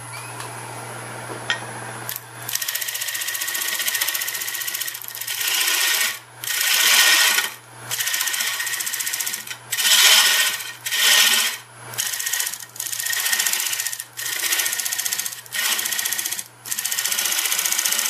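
Carbide-tipped roughing gouge (Easy Wood Tools Easy Rougher) cutting into spinning mesquite on a wood lathe, making wide, rough cuts at the base of a hollow vessel. The cutting starts about two and a half seconds in and runs as a string of harsh passes, each one to three seconds long, with short breaks between them. The lathe motor hums steadily underneath.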